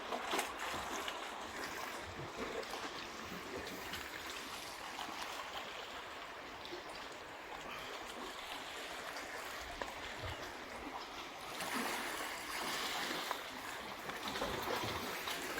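Seawater washing and trickling around shoreline rocks: a steady hiss of moving water that grows a little louder near the end.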